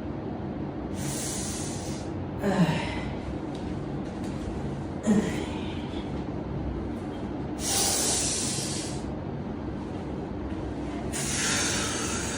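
A person's breathing: three long hissing exhales about a second each, with two short low grunts in between, over a steady low background hum.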